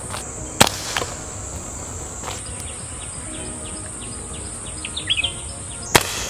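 CO2 BB air pistol shots: three sharp cracks, one under a second in, one about two seconds in and one near the end, over a steady high insect buzz with a few bird chirps.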